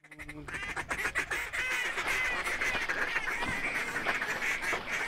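A flock of waterfowl calling, with many short overlapping calls running on without a break. A brief low tone sounds at the very start.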